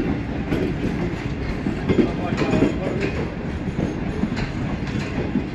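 Pakistan Railways passenger coaches rolling slowly past on arrival, their wheels giving a steady low rumble and clatter over the track.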